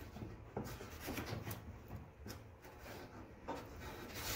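Cardboard being pressed and rubbed against a rusty steel fender panel while a template is fitted to the inner brace: irregular light scraping and rustling with small clicks.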